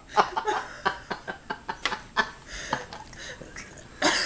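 Soft breathy chuckling laughter, with small clicks and smacks scattered through it.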